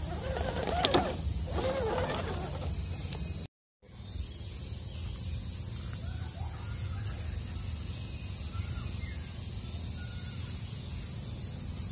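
Outdoor ambience: a steady high-pitched insect drone over a low rumble, with a few faint bird chirps. Indistinct voices are heard for the first three seconds, and the sound drops out for a moment about three and a half seconds in.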